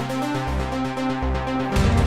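Electronic background music with held synth notes and a pulsing bass, rising into a swell near the end.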